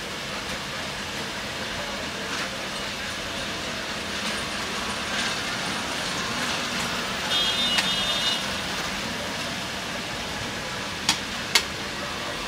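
Steady market background noise, with a cleaver striking through fish into a thick wooden chopping block twice, sharply, about half a second apart near the end. A short high tone sounds briefly around the middle.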